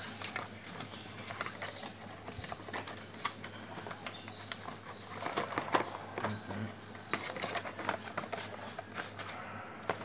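Cardboard webcam box being handled as the webcam and its cable are pulled out: irregular light clicks, taps and scraping rustles of card and plastic.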